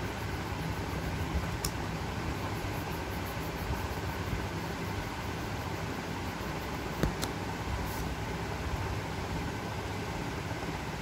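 Steady mechanical hum and hiss, like a room fan running, with a single sharp click about seven seconds in.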